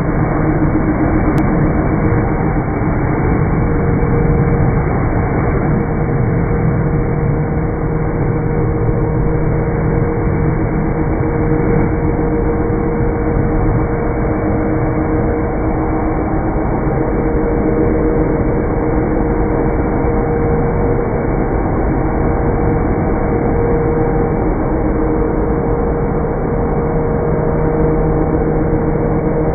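Leaf blower running at a steady speed: a loud, even rush of air with a droning hum that holds one pitch.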